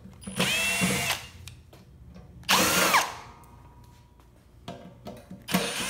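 Cordless drill/driver spinning screws out of a sheet-metal charger cover in three short runs, its motor whine rising and falling in pitch with each run.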